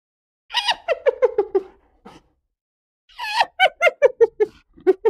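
Hyena giggling: two bouts of quick, repeated yelping notes, about six a second, each bout starting higher and settling lower in pitch.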